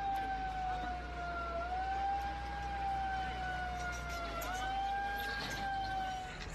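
An emergency vehicle's siren wailing slowly: one tone that sags in pitch and climbs back twice before cutting off near the end. A low engine drone runs beneath it.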